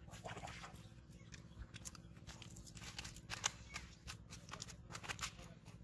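Freshly caught fish flopping on a jute sack on the bank: a run of irregular faint slaps, crackles and rustles, several a second, the loudest about three and a half seconds in.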